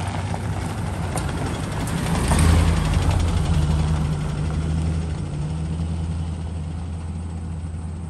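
Ford Super Duty pickup truck's engine running steadily as it drives off down a gravel lane, loudest about two and a half seconds in as it passes close.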